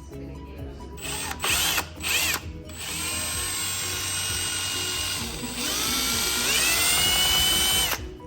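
Power drill/driver motor: two short trigger pulses that spin up and down, then about five seconds of steady running that rises in speed partway through, then stops suddenly. Background music underneath.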